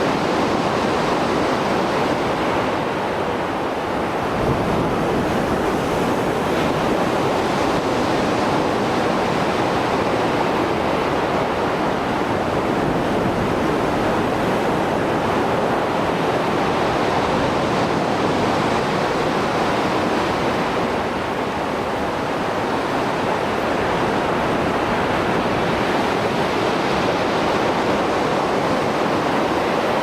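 Rough sea surf after a storm: waves breaking and washing in a continuous loud rush, swelling and easing slowly.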